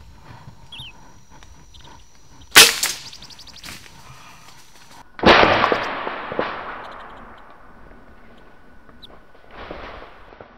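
Two loud shots taken at a red junglefowl in the trees: a sharp crack with brief ringing, then about three seconds later a second sudden burst that trails off in a hiss over a couple of seconds.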